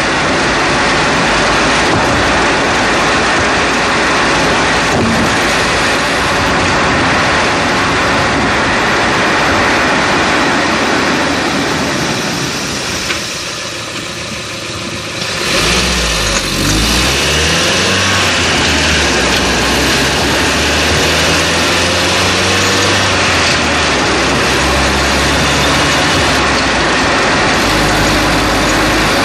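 Road and tyre noise picked up at the front passenger-side strut of a 2011 Chevrolet Cruze while driving. About halfway through the noise drops as the car slows nearly to a stop, then the car pulls away with the engine pitch rising in several climbs.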